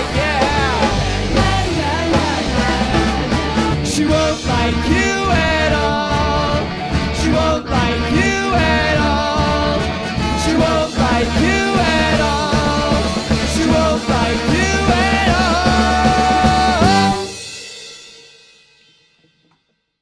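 Ska band playing live: trumpet and trombone over electric guitars, bass guitar and drums. About seventeen seconds in it ends on a held final chord that rings out and fades to silence over the next two seconds or so.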